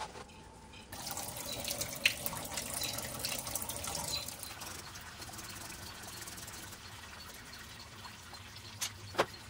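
Engine coolant pouring from the radiator drain into a plastic drain pan, a trickling, splashing stream that starts about a second in and is loudest for the next few seconds. A couple of light knocks near the end.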